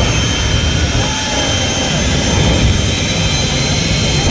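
Two jet dragsters' turbojet engines running at the starting line with afterburners lit, a loud, steady roar that dips slightly about a second in.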